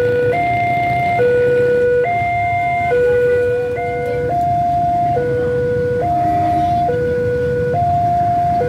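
Railway level-crossing warning alarm sounding from the crossing's loudspeakers, an electronic two-tone signal stepping back and forth between a low and a higher tone, each held just under a second, to warn that a train is approaching. A steady low rumble runs beneath it.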